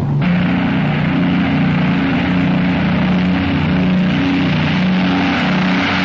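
Steady drone of a four-engined Avro Lancaster bomber's piston engines on takeoff, the pitch of the engines wavering slightly, under the hiss of an old film soundtrack.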